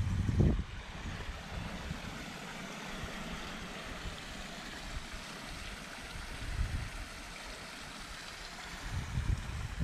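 Steady outdoor hiss, with wind rumbling on the microphone briefly at the start and again near the end.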